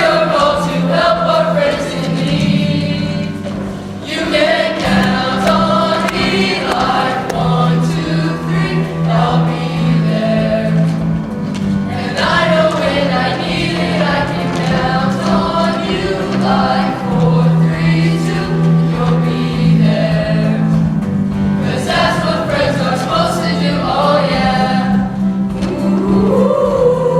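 Show choir singing in parts over an instrumental accompaniment, with long held low notes under the voices.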